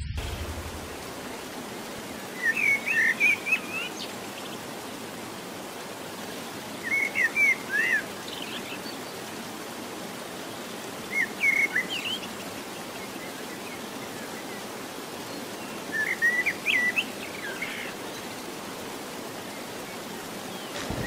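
A songbird singing short, quick phrases of chirped notes, four times about four to five seconds apart, over a steady rush of running water.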